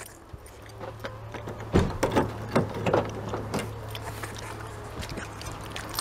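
Footsteps crunching on a dirt-and-gravel lot, a few irregular steps about two seconds in, over a steady low hum.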